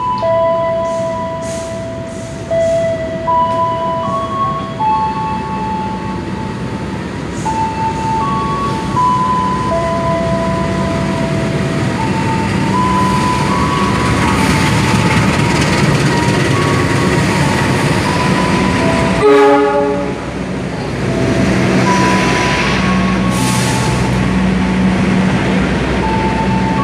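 CC 206 diesel-electric locomotive hauling a passenger train into the platform, its engine droning and wheels rumbling more loudly as it draws alongside. There is a short loud blast about nineteen seconds in, and a simple melody of held tones plays throughout.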